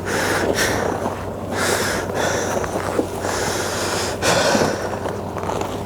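A vehicle engine idling steadily, under repeated irregular rushes of noise close against the microphone.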